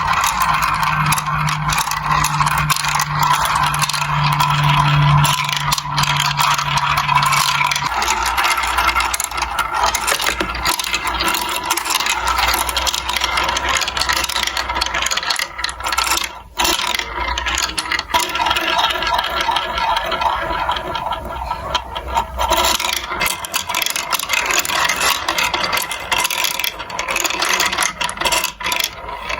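Many marbles rolling and clattering through a plastic building-block marble run, a continuous dense rattle of small clicks. A small motor hums steadily under the first eight seconds, then gives way to a low rumble.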